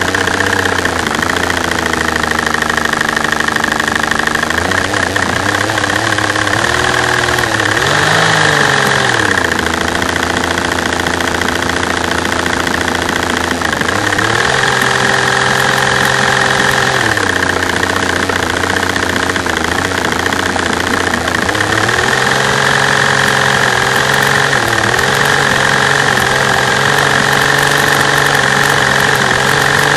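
V12 engine running with a bad misfire, heard close up at the fuel rail, with fuel injectors tapping. Engine speed rises and falls a few times: a brief blip, then a step up to a higher speed that drops back and rises again.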